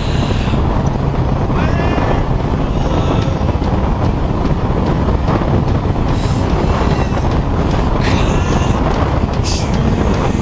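BMW motorcycle engine running at a steady road speed, with wind rushing over the handlebar-mounted microphone.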